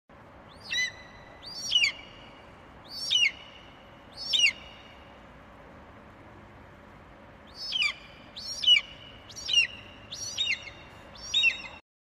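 Bald eagle calling: four high, thin notes that each fall in pitch, about a second apart, then after a pause a quicker run of about six more, over a faint steady hiss.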